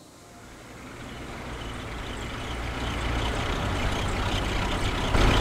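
2005 GMC Envoy driving up the road, its running and tyre noise with a low hum growing steadily louder. The noise comes from the left front wheel, which the mechanic suspects is a sticking or locking brake caliper.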